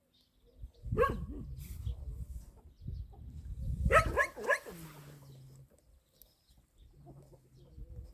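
Animal calls: a loud burst of short calls about a second in, another cluster around four seconds in, then a lower, drawn-out call.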